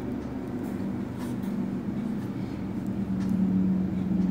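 A steady low mechanical hum, like an engine or motor running, that grows a little louder about three seconds in, with a few faint clicks.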